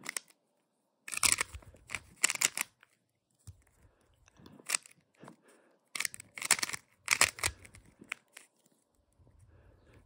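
Rubik's Cube layers being turned by hand, the plastic pieces clacking and scraping in two quick flurries of turns: one about a second in, another around six seconds in, with a few single clicks between.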